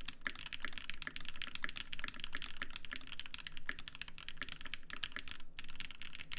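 Fast, continuous typing on a Viendi 8L custom mechanical keyboard: a dense run of key clacks, broken by one short pause about five and a half seconds in.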